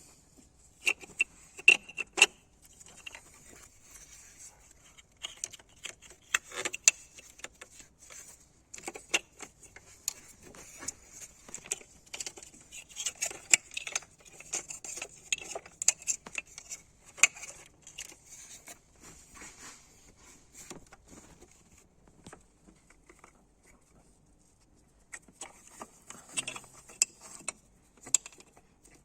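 Irregular light metallic clinks and rattles of small metal objects being handled, with a quieter lull about three quarters of the way through.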